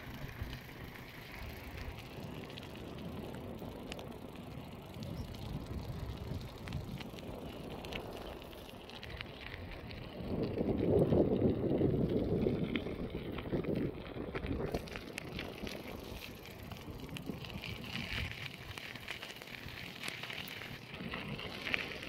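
Wind rumbling on the microphone with crackly crunching of gravel on a dirt track, the rumble growing louder for a few seconds about halfway through.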